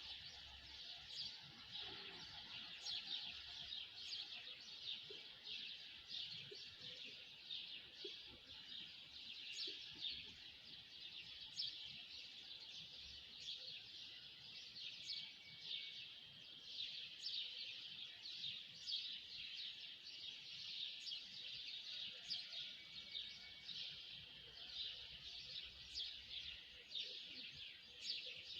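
A dense chorus of many small birds chirping at once, a continuous overlapping twitter of short, high calls.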